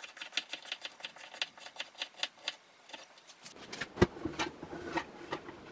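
Kitchen knife chopping carrots on a wooden cutting board: quick, even knife taps, about five a second. Past the halfway point the sliced carrots are scraped off the board into the Instant Pot, a sliding scrape with one sharp knock.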